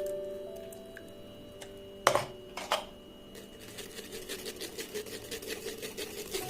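A spoon working ground watermelon pulp through a strainer to drain the juice: two sharp knocks about two seconds in, then a quick, even run of scraping ticks, about five or six a second, over soft background music.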